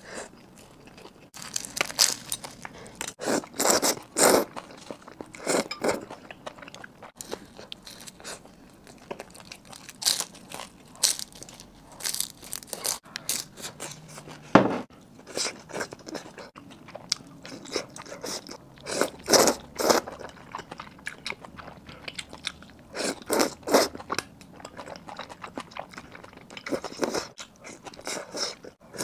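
Close-up chewing and crunching of a crisp-crusted roujiamo flatbread sandwich, in irregular clusters of bites and wet mouth sounds. One sharp click stands out about halfway through.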